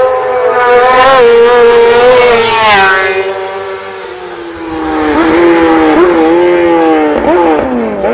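Racing motorcycle engine at high revs, easing off about three seconds in, then climbing again through several quick gear changes before its pitch drops sharply near the end.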